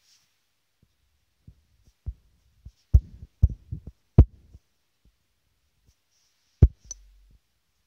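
Irregular dull thumps of fingers tapping and pressing on a phone's touchscreen, picked up through the phone's own microphone. They come in a cluster around three to four seconds in and once more, sharply, near the end.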